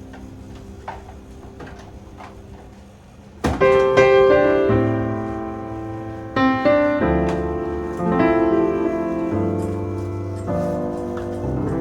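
Background piano music: soft at first with a few faint clicks, then louder piano chords ringing out and changing every second or so from about a third of the way in.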